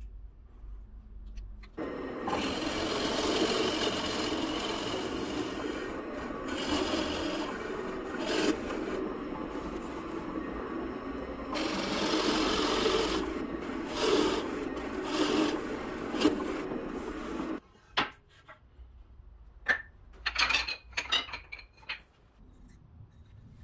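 Drill press boring holes into a wooden board with a Forstner bit. The cutting noise swells and eases as the bit is fed in and drawn out several times, then stops about three quarters of the way through. A few light knocks follow near the end.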